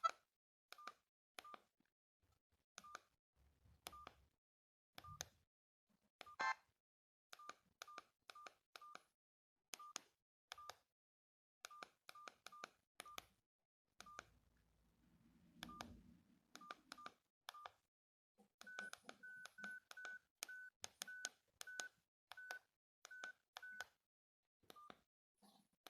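Faint key beeps from a Tevion/Medion MP2410 mobile phone's keypad: short single-pitch beeps, one per key press, coming at irregular intervals, with a quicker run of slightly higher beeps about three-quarters of the way through.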